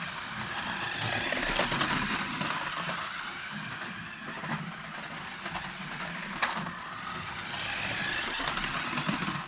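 Electric motor and plastic gearbox of a toy-grade 1:14 RC crawler truck whirring as it drives at speed, with tyres rolling and occasional clicks and rattles. The sound swells and eases as it moves, then stops abruptly at the end.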